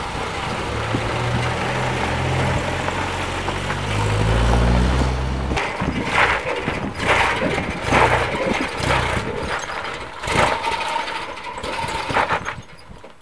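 A 1984 Nissan pickup's twin-plug NAPS-Z four-cylinder engine running with a steady low hum, rising in pitch about four to five seconds in as the truck is driven off. After that come irregular bursts of noise that fade near the end.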